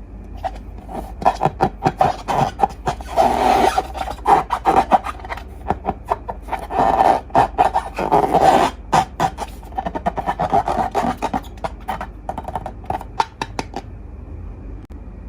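Slime being squeezed and worked by hand: a run of quick sticky crackles and squishes, with two longer rubbing stretches about three and eight seconds in, stopping about a second before the end.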